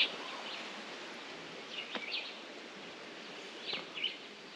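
Wild birds chirping in short high phrases, once about two seconds in and again near the end, over a steady low hiss of outdoor background noise.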